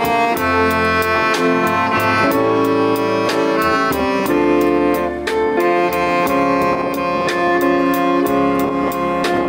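Saxophone playing a slow jazz ballad melody over a backing band: held notes over a bass line and a steady beat.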